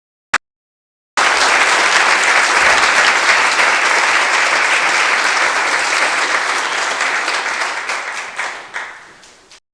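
Audience applause. A single short click comes first; about a second later dense clapping starts abruptly and holds steady. It then fades over the last couple of seconds into a few scattered claps before cutting off.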